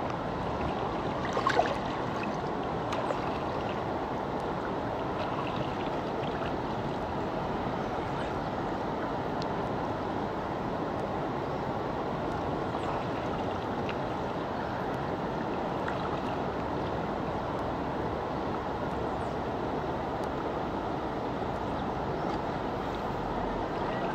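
Shallow river water flowing steadily, an even rushing noise, with a short sharp sound about a second and a half in.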